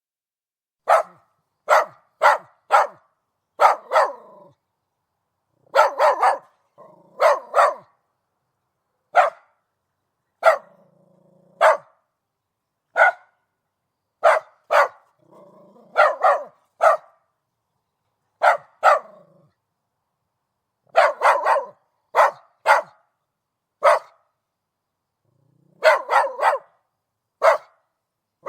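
Miniature schnauzer barking: short, sharp barks, singly and in quick runs of two or three, with pauses of about a second or more between runs.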